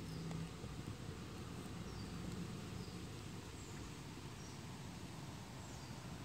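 Faint steady outdoor background noise with a low hum, and a few short, faint, high chirps scattered through it.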